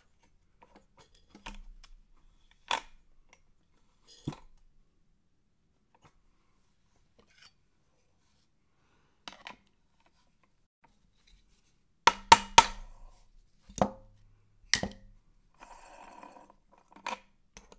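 Metal clicks, clinks and knocks of hand tools against a vintage two-stroke chainsaw's reverse-threaded clutch as it is worked loose, scattered and sparse, with a quick run of sharp strikes about twelve seconds in, two more after, and a brief rattling scrape near the end.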